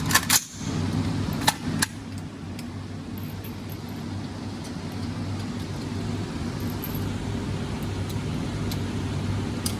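Gunshots: a sharp report at the start, two more close together about a second and a half in, then a steady low hum.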